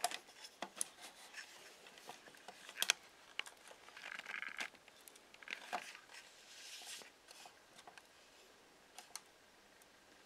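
Faint handling noise from the camera or phone: scattered sharp clicks and short crinkling scrapes, dying away in the last couple of seconds.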